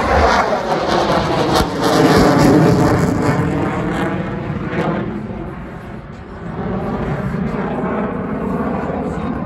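F-22 Raptor's twin Pratt & Whitney F119 turbofan engines making loud jet noise as the fighter flies its display, the sound sweeping and phasing as the jet moves across the sky. It fades about six seconds in, then swells again.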